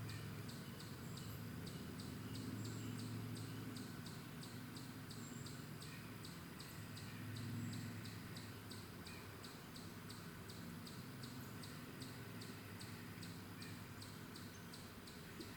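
An insect chirping high and steady, about three chirps a second, over a faint low rumble.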